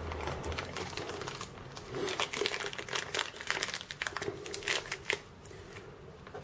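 Small clear plastic bag crinkling and rustling as hands open it, with quick irregular clicks, dying down after about five seconds.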